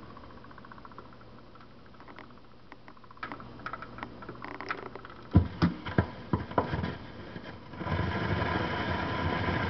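Record changer cycling on a 45 rpm single: the mechanism ticks and clicks as the tonearm swings over. The stylus sets down at the record's edge with a heavy thump and a few smaller bumps through the speakers. Then the hiss and crackle of the lead-in groove begins, about two seconds before the end.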